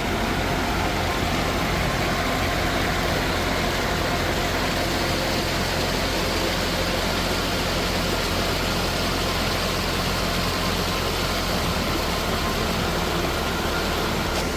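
Sheep River Falls: a river waterfall and its rapids giving a steady, even rush of falling water.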